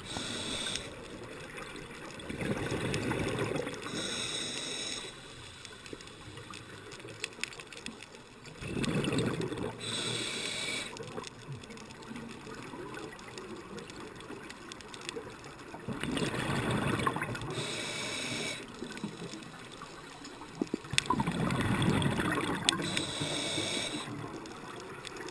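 Scuba diver breathing through a regulator underwater, heard through a GoPro's waterproof housing: four slow breath cycles, each a rumble of exhaled bubbles followed by a short hiss of inhaled air.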